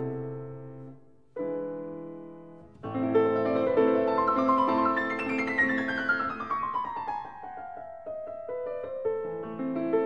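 Background piano music: a chord fading away, a second chord, then a melody with a long run of notes falling in pitch.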